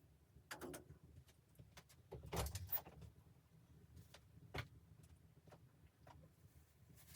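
Faint handling noises: a few scattered knocks and clicks, the loudest a short clatter a little over two seconds in and a single knock about four and a half seconds in.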